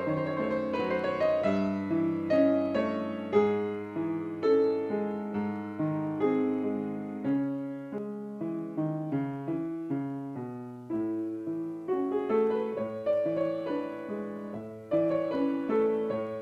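Background instrumental music played on a keyboard: a gentle melody with chords, each note struck sharply and fading away.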